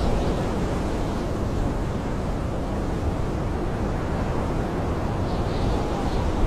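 Blizzard wind howling around a camping tent, a steady deep rushing rumble heard from inside.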